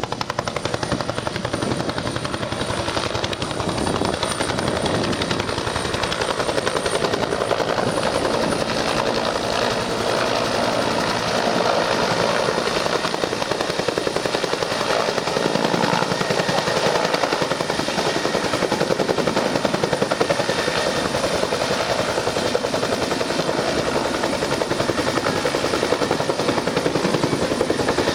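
Search-and-rescue helicopter hovering for a rescue, its rotor blades chopping in a steady rapid beat with a faint high turbine whine over it.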